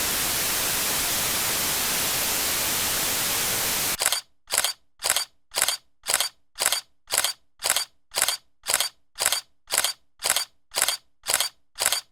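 Steady static hiss, like white noise, that cuts off suddenly about four seconds in, followed by short bursts of hiss repeating evenly about twice a second.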